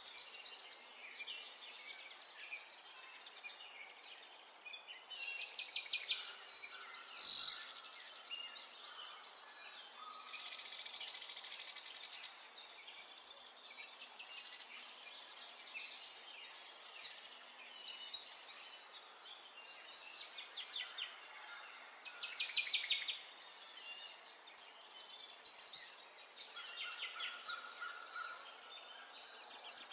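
Songbirds chirping and trilling, one rapid trill after another, over a faint steady hiss.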